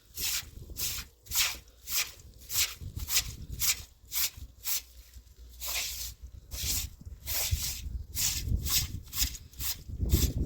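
Rhythmic scrubbing strokes, about two to three a second, each a short hiss, as something is scrubbed clean.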